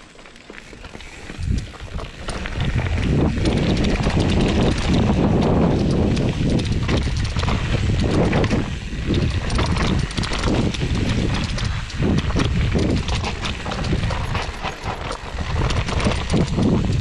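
Mountain bike riding down a dirt forest trail: tyre rumble with a dense run of knocks and rattles from the bike over the bumps. It grows louder about two seconds in.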